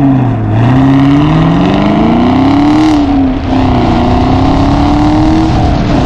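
2022 Chevrolet Camaro SS's 6.2-litre pushrod V8 running under throttle. The engine note climbs, drops about three seconds in, then climbs again more slowly.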